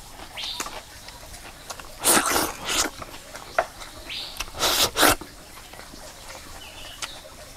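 Hands rubbing and handling a raw fish skewered on a bamboo stick: two bursts of loud scraping, rustling noise about two and five seconds in, with a few small clicks between.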